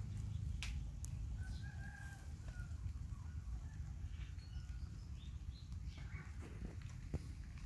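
Soft clicks and scrapes as a Persian melon is worked by hand, over a steady low outdoor rumble. A rooster crows faintly about a second and a half in.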